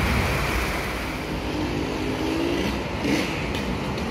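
Heavy rain hissing on wet pavement while a coach bus drives past with its engine running.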